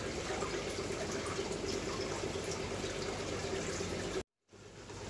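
Steady bubbling and water noise from aquarium aeration and filtration, with a faint steady hum. It cuts off abruptly about four seconds in.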